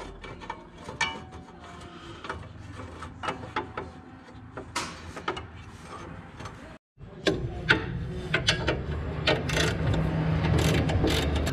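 Irregular clicks and metallic clinks of a ratchet wrench and bolts as a steel belt keeper bracket is bolted onto a mower. About two-thirds of the way through, a steady low hum starts beneath the clicking.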